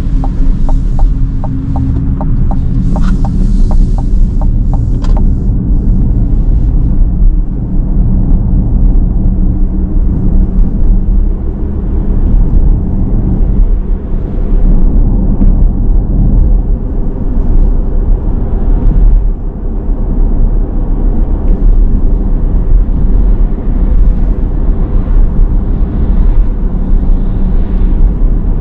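Steady low road and tyre rumble inside the cabin of a Cadillac Lyriq electric SUV on the move. A quick, regular ticking runs through the first five seconds and then stops.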